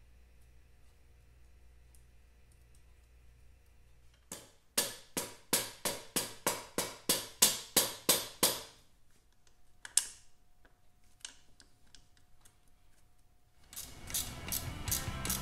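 Soft mallet tapping a muffler onto the end of a motorcycle's chrome exhaust pipe: a quick run of about fifteen taps, roughly four a second, then one more tap a little later. Music comes in near the end.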